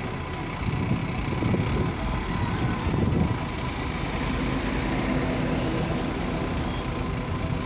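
JCB backhoe loader's diesel engine running, louder and rougher for the first three seconds or so, then settling into a steadier drone.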